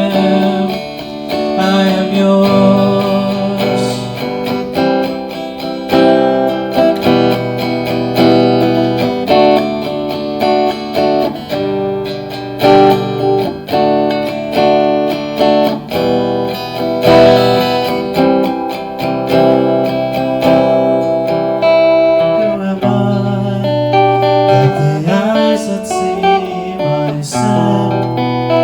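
Acoustic guitar strummed and picked through an instrumental break, changing chords every second or two, with no singing.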